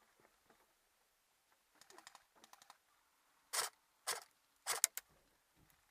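A scattering of faint ticks, a quick rattle of fine clicks about two seconds in, then four short, sharp, loud snaps in the second half.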